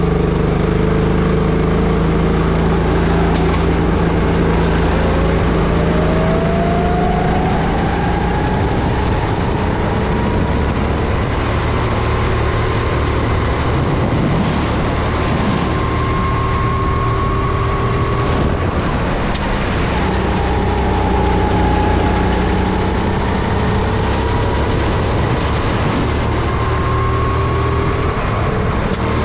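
Honda GX270 single-cylinder four-stroke engine of a Sodi RT10 rental kart running hard under throttle, its revs climbing and falling several times as it accelerates and eases off.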